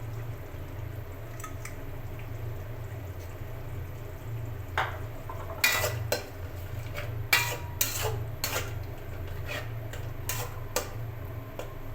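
A utensil clinking and scraping against a cooking pot while stirring, a run of about ten knocks from about five seconds in, over a steady low hum.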